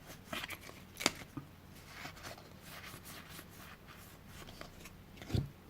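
Faint rustling and small clicks of a stack of game cards being handled, with one sharper click about a second in and a soft thump near the end.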